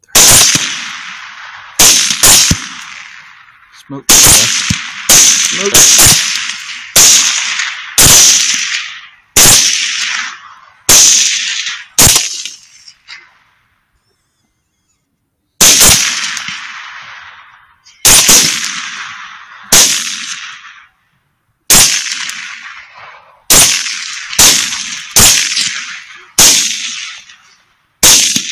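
Rapid gunfire: about twenty shots, mostly one to two seconds apart with a pause of a few seconds near the middle. Each shot is a sharp crack that rings out and fades over a second or so.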